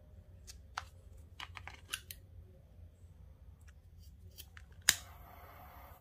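Small scissors snipping paracord in a few short, sharp cuts. Near the end a loud sharp click is followed by a steady hiss that stops suddenly.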